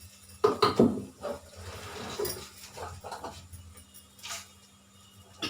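A short run of whining, animal-like calls about half a second in is the loudest sound. Under it cumin seeds are frying in hot oil in a kadhai, with a few clinks of a utensil.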